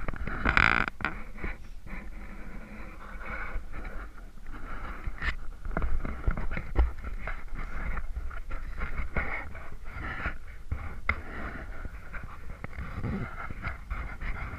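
Sea kayak being paddled: water splashing and trickling off the paddle blades and lapping along the hull in irregular crackly splashes, with the strongest splash about half a second in. A low rumble of wind on the camera microphone runs underneath.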